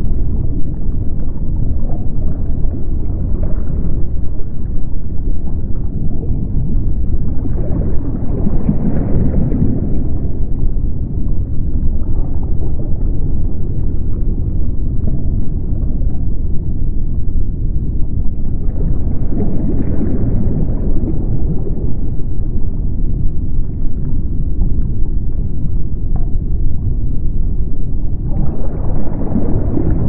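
Deep underwater ocean ambience: a continuous low rumble that swells and brightens three times, about ten seconds apart, like the ebb and flow of waves heard from below the surface.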